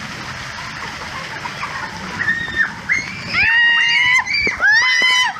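Water sloshing and splashing in a lazy river, then from about three seconds in, loud high-pitched shrieks and squeals from children over the splashing.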